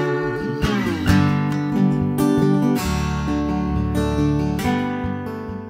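Acoustic lap steel guitar played with a slide bar: a downward slide near the start, then plucked notes and chords ringing and gradually dying away as the closing instrumental phrase of a song.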